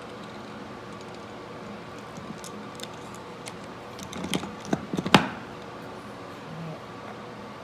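Light clicks and taps of wooden stop-block pieces and small hardware being handled on a workbench, with a cluster of sharper knocks about four to five seconds in, the loudest near the five-second mark.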